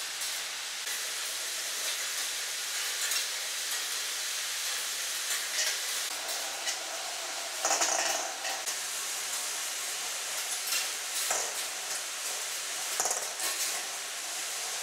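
Steel balls rolling along the metal wire tracks of a large kinetic ball-run sculpture, making a steady rolling hiss. It is broken every few seconds by short metallic clinks and clatters, the loudest about eight seconds in.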